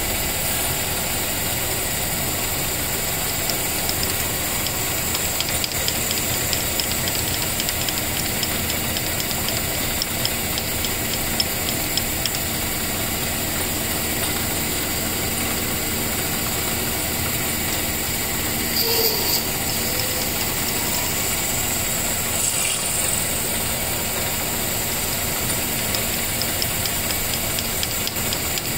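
Small metal lathe running steadily with its chuck spinning, while a twist drill in the tailstock bores into a G-10 fiberglass ferrule blank.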